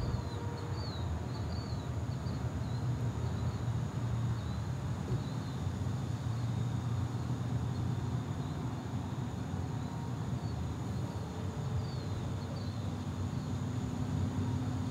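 Outdoor ambience: a steady low rumble with birds chirping briefly near the start and again about 11 to 12 seconds in, over a thin steady high whine.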